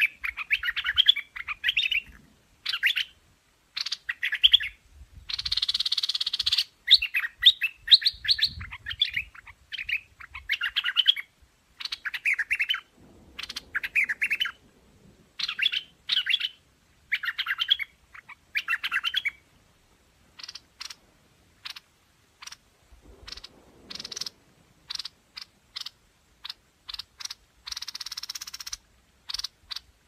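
Streak-eared bulbul singing, repeating short warbling phrases of about a second each with brief gaps. About two-thirds of the way through it gives way to a run of short, sharp clicking notes.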